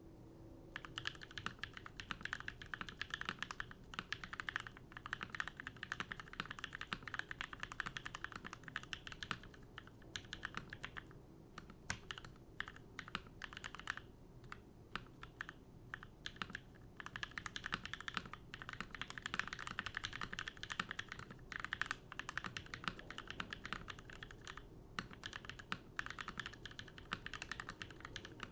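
Typing on a Keycult No. 1 TKL mechanical keyboard fitted with NovelKeys Cream linear switches: fast, continuous keystrokes starting about a second in, broken by a few short pauses.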